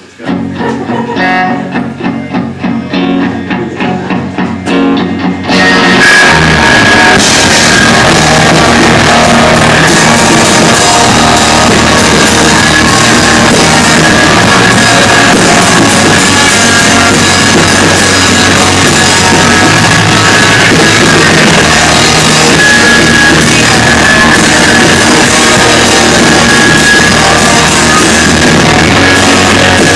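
Live rock band starting a song. A guitar plays separate picked notes alone, then about five and a half seconds in the full band comes in loud with guitars and a drum kit, playing heavy and steady.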